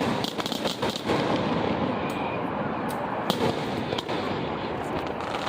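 Fireworks going off: a cluster of sharp pops and crackles in the first second, then single bangs a few seconds in, over a continuous rumbling noise.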